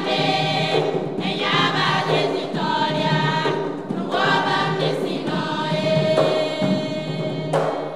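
A women's gospel choir singing together, several voices carried through handheld microphones.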